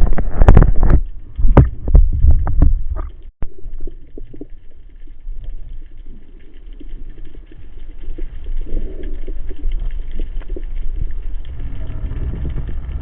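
Water sloshing and knocking against a camera housing at the surface for the first few seconds. After an abrupt cut it gives way to a steady, muffled underwater rumble.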